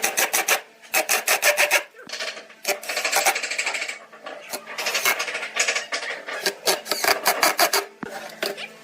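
A hand tool working wood in quick back-and-forth rasping strokes, several a second, in runs broken by short pauses.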